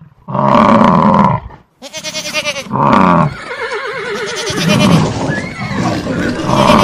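Farm-animal calls in loud succession: a long call, a brief break, a burst of rapid pulsing, another long call, then a call with a wavering, trembling pitch like a bleat, and one more long call near the end.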